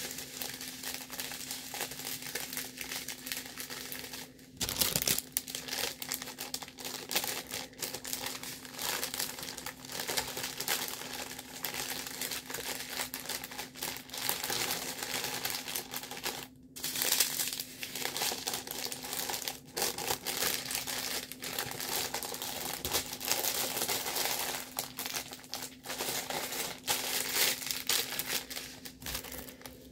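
Packaging crinkling and rustling continuously as a diamond painting kit is unwrapped by hand, with a louder rustle about five seconds in.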